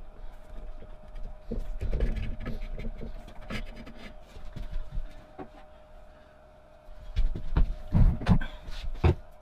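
Handling noise of a drill press spindle quill and its cast-iron head on a workbench: scattered clicks and knocks of metal parts, with louder thumps and rubbing from about seven seconds in as a sleeve brushes close past the microphone.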